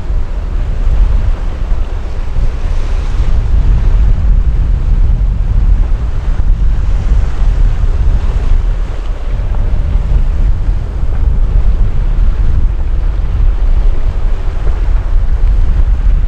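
Loud wind buffeting the microphone: a steady, flickering low rumble with a fainter hiss above it.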